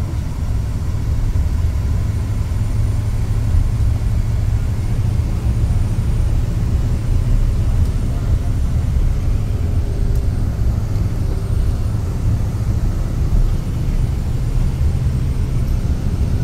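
Steady deep rumble of a coach's engine and tyres on the road, heard from inside the passenger cabin while the bus drives along.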